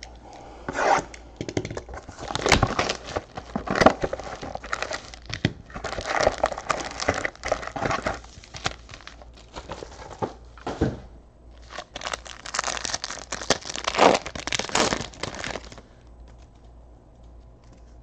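The plastic wrapping and packaging of a trading card box being torn open and crinkled, with the foil card packs handled. The tearing and crinkling come in irregular bursts and stop about two seconds before the end.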